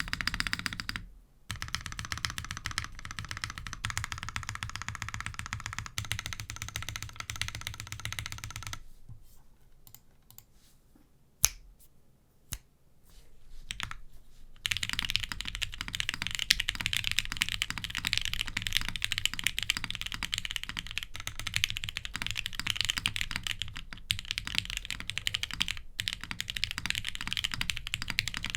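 Typing on a Jane ME mechanical keyboard with lubed and filmed Gateron Vermillion Bird switches, PBTfans keycaps, an SMA acrylic plate and no foam. Steady typing drops off about nine seconds in, leaving only a couple of single key strikes, then resumes densely about fifteen seconds in.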